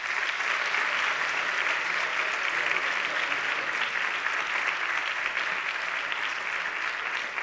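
Audience applauding, steady dense clapping that eases a little near the end.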